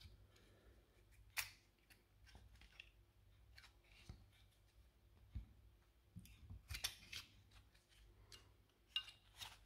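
Faint, scattered clicks and taps of 18650 lithium-ion cells being pressed into a plastic battery-pack cell holder and the pack being handled in gloved hands.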